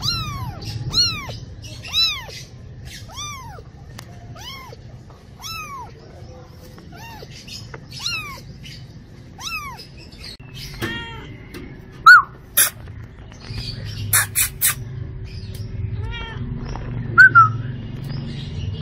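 Cat meowing over and over in short, high-pitched mews about once a second, growing fainter. Later come a few louder mews and several short, sharp clicks.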